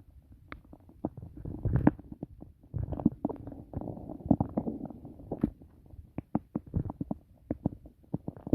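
A human stomach and intestines gurgling during digestion after a meal: an irregular run of small pops, squelches and gurgles, busiest in the middle.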